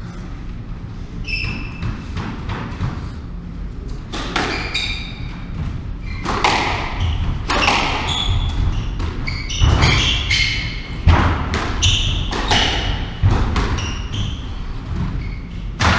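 Squash rally in a walled court: the ball is struck by rackets and hits the walls in sharp, echoing smacks, sparse at first and coming quickly from about six seconds in, with short shoe squeaks on the wooden floor.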